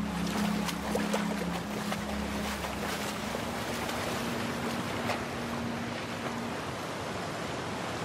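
Ocean surf breaking and washing up a sandy beach, a steady rushing wash with faint splashes, over a low held musical drone.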